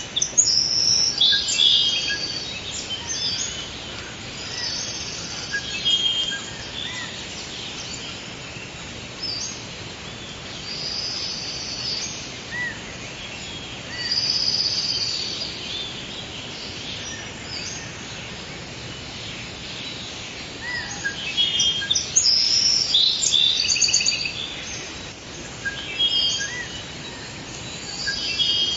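Forest ambience: several birds singing and chirping over a steady background hiss, with bursts of song at the start and again about 21 to 27 seconds in.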